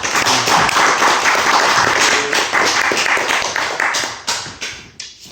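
A room of people applauding: dense clapping that thins out and fades about four to five seconds in.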